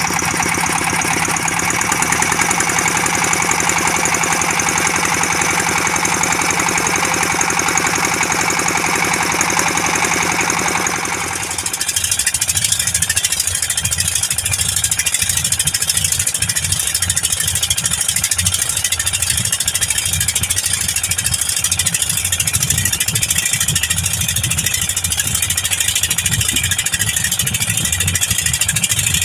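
A fishing boat's deck-mounted diesel engines running steadily while the boat is under way. About eleven seconds in, the sound changes abruptly to a rougher, lower engine rumble mixed with the rush of water and wind.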